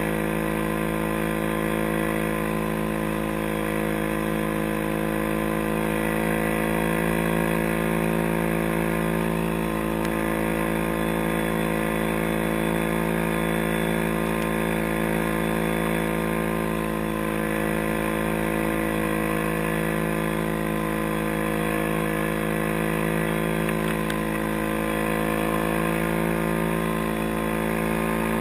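Tracked ATV's engine running at a steady, nearly constant pitch while the quad rides over snow.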